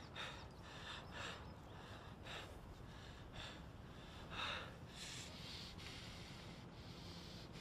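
A person breathing heavily in short, shaky breaths about once a second, with one louder gasp about four and a half seconds in.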